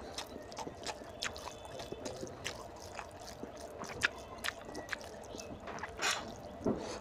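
A bare hand mixing oily mutton curry with rice: soft wet squelches and scattered small clicks at irregular intervals.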